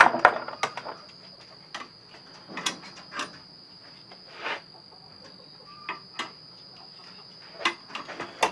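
Steel parts of a 330 Conibear body-grip trap clinking and knocking as it is handled on a workbench and in a vise during a spring change: a dozen or so short, irregular clicks, with a faint steady high-pitched tone underneath.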